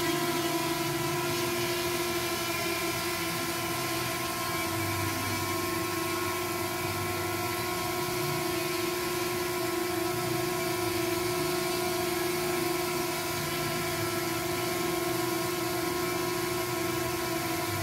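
Steady multi-tone hum of a small quadcopter drone's propellers, holding one pitch as it hovers.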